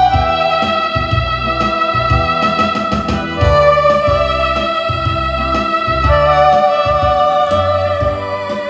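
Background music: sustained keyboard melody over a steady bass line.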